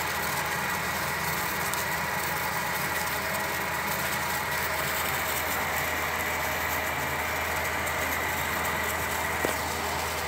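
Steady noise of a pot of water and minced pork at a full rolling boil on a gas stove burner.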